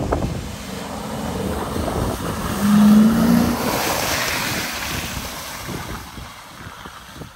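Porsche Cayenne S's 4.5-litre V8 engine revving under load as the SUV churns through deep mud, its tyres throwing up and splashing mud. The engine note is loudest about three seconds in, a spell of spraying hiss follows as it passes close, and then it fades as it pulls away.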